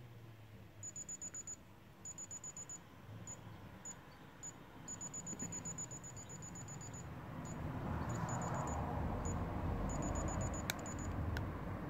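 Non-contact infrared thermometer beeping in rapid runs of short, high-pitched beeps, broken into several bursts. The owner takes this kind of beeping as the sign that it has failed to take a reading. A low rumble swells in the background over the last few seconds, with a single click near the end.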